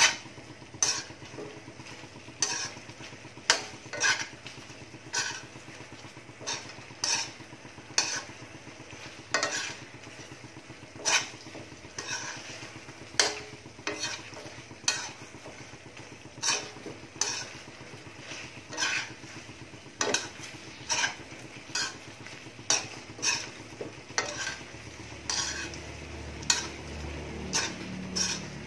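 Metal spoon scraping and clinking against an aluminium wok about once a second as chicken feet in adobo sauce are stirred, over a low sizzle of the sauce being cooked down.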